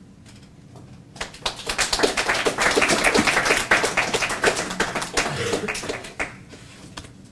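A small group of people clapping, starting about a second in, building quickly and dying away after about five seconds.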